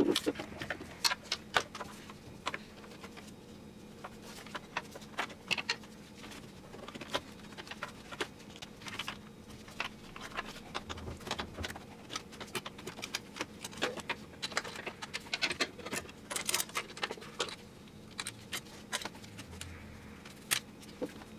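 Light, irregular clicks, taps and small rattles of hands handling the transmission cooler lines and their plastic fittings, with scattered clusters of quick ticks.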